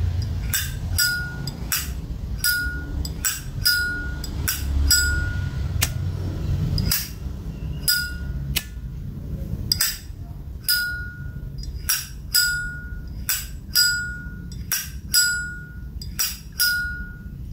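Zippo lighter's hinged lid being flipped open and snapped shut over and over, a series of sharp metallic clicks, many of them with the short ringing clink typical of a Zippo lid.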